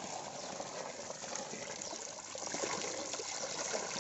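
Water poured from a bucket over a clump of freshly dug ginger roots, washing the soil off and splashing down onto the ground in a steady stream.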